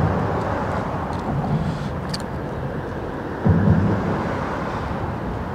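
Steady rumble of road traffic crossing a causeway bridge, with a brief louder low swell about three and a half seconds in.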